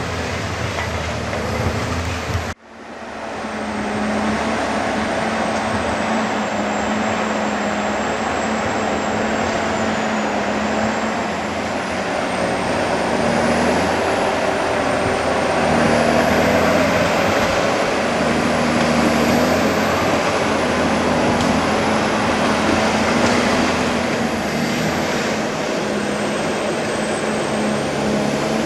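Diesel engine of a loaded forestry forwarder running as the machine works over rough forest ground, its pitch rising and falling with the throttle. The sound breaks off for a moment about two and a half seconds in, then resumes.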